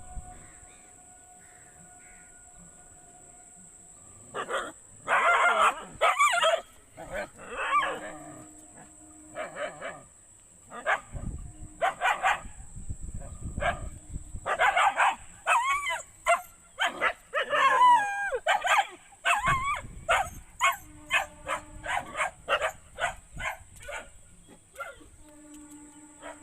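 Dogs barking in repeated loud bursts after a few quiet seconds, some barks drawn out into cries that bend up and down in pitch, then a run of quick short barks near the end.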